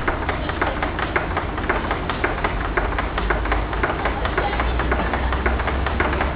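Storm-boat ride machinery running with a steady low rumble and a dense, irregular clatter of knocks and clicks.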